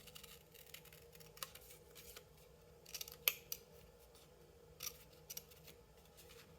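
Scissors snipping paper in short, separate cuts, clipping slits around the edge of a paper circle. There are a few spaced snips, with a cluster of them a little after three seconds in.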